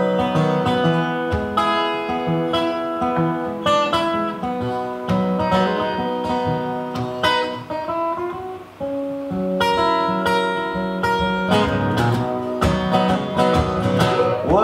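Solo steel-string acoustic guitar playing an instrumental break between sung verses, picked notes and strums ringing out, with a brief lull about eight and a half seconds in.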